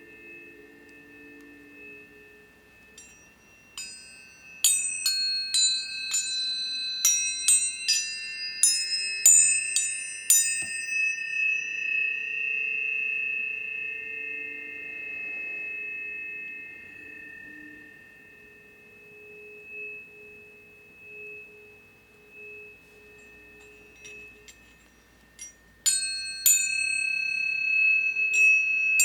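Tuning forks struck one after another, each strike a sharp tap followed by a pure ringing tone. A quick run of strikes comes from about four to ten seconds in. The tones then hang and slowly fade, and another group of strikes comes near the end.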